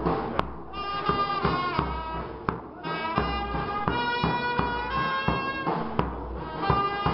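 Music: a reedy wind instrument plays a melody of held, shifting notes, with a few drum strikes underneath.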